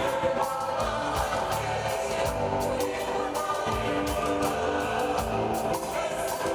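A choir singing to instrumental accompaniment with a steady beat.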